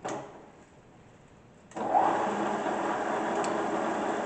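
A click, then about 1.7 s in the 3-horsepower variable-speed head of a Modern 200 KVS vertical milling machine switches on and its spindle runs steadily in high range.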